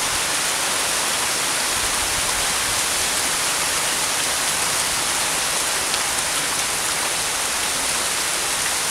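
Steady rain falling, an even hiss that holds unchanged.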